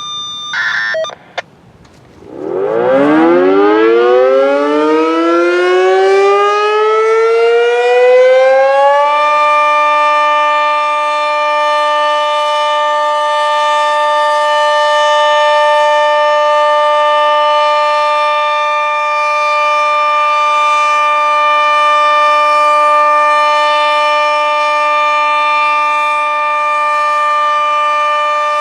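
A few short electronic beeps, then a Sentry 40V2T dual-tone tornado siren winds up about two seconds in. Its chord rises in pitch for several seconds, settles about nine seconds in, and holds as the steady alert tone.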